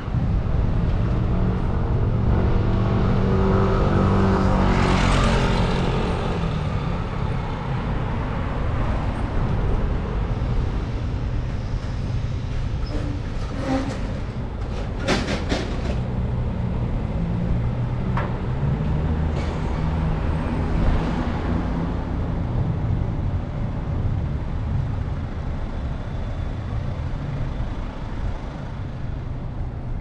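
City road traffic: a steady low rumble of engines and tyres, with a larger vehicle passing loudest about four to five seconds in. A few short sharp knocks come about halfway through.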